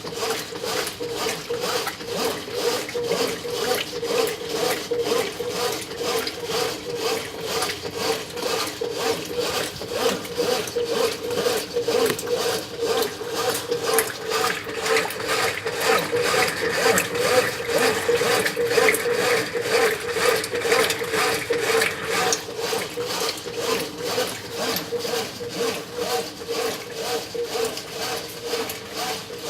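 Brastemp 9 kg washing machine running its wash cycle with a high water level: a steady motor hum with a rhythmic churning as the load is agitated in the water.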